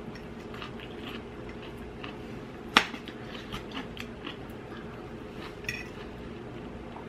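Metal knife and fork scraping and clicking against a plate while cutting meat, with one sharp clink about three seconds in.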